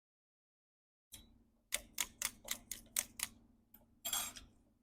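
A quick run of seven sharp clicks, about four a second, over a low steady hum, followed by a short scraping hiss near the end.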